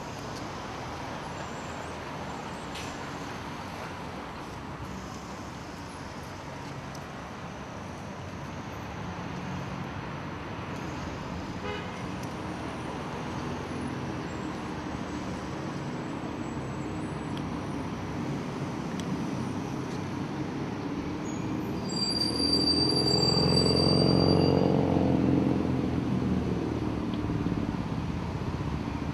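City street traffic, with one louder vehicle passing close about three-quarters of the way through, its engine rising and fading, a brief high-pitched whine with it.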